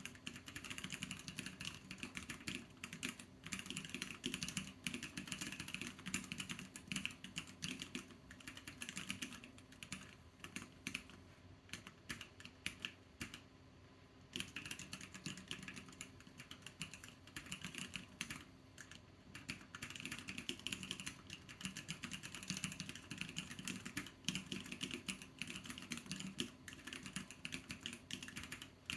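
Fast, steady typing on a MiniAxe mechanical keyboard with Durock White Lotus linear switches and black XVX-profile keycaps, a dense run of key clacks. The typing thins out into a brief lull about halfway through, then resumes at the same pace.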